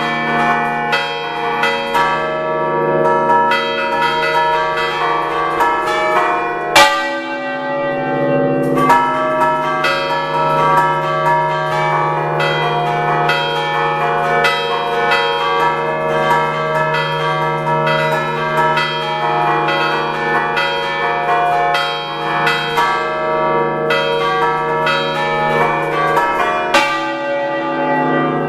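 A concerto of six church bells tuned to D, cast by the Picasso foundry, struck by hand in the Ligurian 'a ducale' style: the clappers are pulled against the fixed bells in a rapid, continuous pattern, with the tones overlapping and ringing on. One strike about seven seconds in stands out as especially loud.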